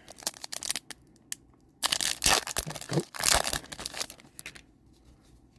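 A foil trading-card booster pack being torn open and crinkled. It starts with a few light clicks and rustles, and there is a run of loud tearing from about two seconds in.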